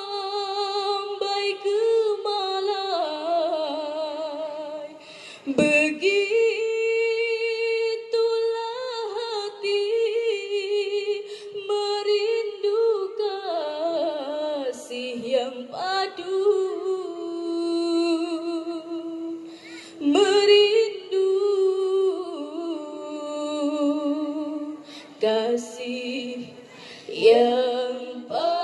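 Female nasyid group singing in several-part harmony, with long held notes and vibrato.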